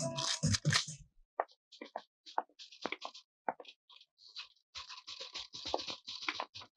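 Guitar music ending about a second in, then a typewriter's keys clacking in irregular clicks that grow busier near the end.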